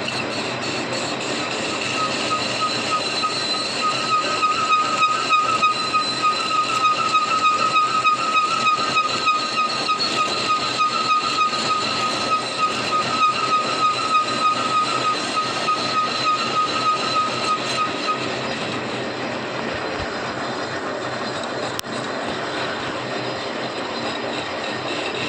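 Machinery running steadily, with a high whine that comes in about two seconds in, wavers quickly in loudness and stops near the end.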